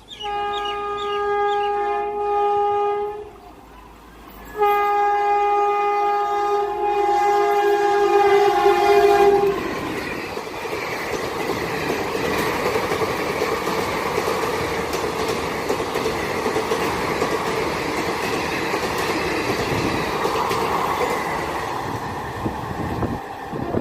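Indian Railways train horn sounding two long blasts, the second longer. It is followed by the train passing at speed, a loud steady rush with wheels clattering over the rail joints.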